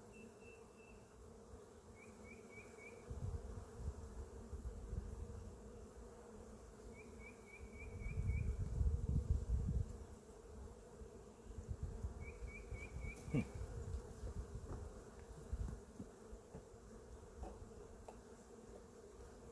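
Honey bees buzzing steadily over an open hive. A low rumbling noise comes and goes, loudest about eight to ten seconds in, and a short rapid chirping trill sounds three times.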